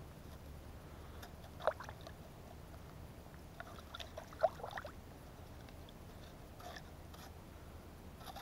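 Plastic ice scoop scraping and scooping snow and slush out of an ice-fishing hole: a short crunch about one and a half seconds in, a cluster of scrapes around four to five seconds in, and a few fainter ones later.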